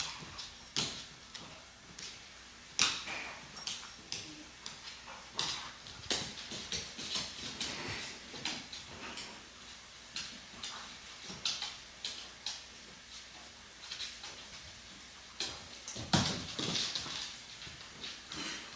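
Two dogs play-fighting: irregular scuffling and sharp clicks throughout, with a louder flurry about 16 seconds in.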